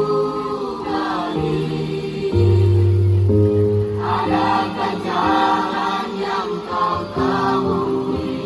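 School choir singing in parts, holding chords that change every second or two.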